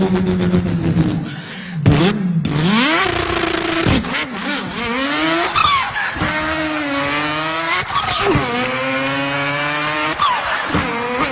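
A person imitating a car engine with his mouth, revving up through the gears: the pitch climbs and drops back about five times.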